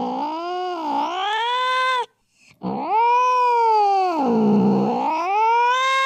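A cat caterwauling in anger: two long, wavering yowls whose pitch sags and climbs again, with a short break about two seconds in.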